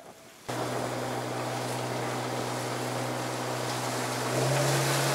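Fishing boat's engine running under way, a steady drone with the rush of spray from the hull and some wind on the microphone. It starts abruptly about half a second in, and the engine note rises a little about four seconds in.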